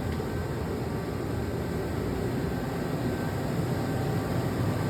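2017 Quaser MV184E/12B CNC vertical mill running a machining program while cutting a part: a steady machine hum with faint high whine tones above it.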